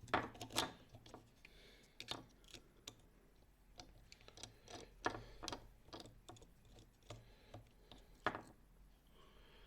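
Irregular clicks and ticks of small-screw work: tiny screws being turned out and handled as the bottom plate of a DJI HD Vista air unit comes off.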